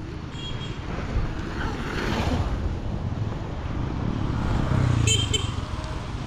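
Road traffic passing close by, with vehicles going by. The loudest pass comes about five seconds in, together with a brief high squeak.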